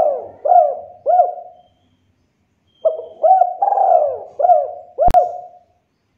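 Spotted dove cooing: the last notes of one phrase, then after about a second's pause a full phrase of about five deep coos. A sharp click comes near the end of the second phrase.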